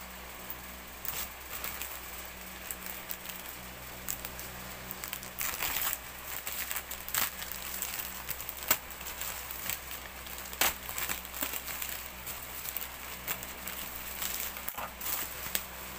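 Plastic mailer bag crinkling and rustling in irregular crackles as it is handled and cut open with scissors.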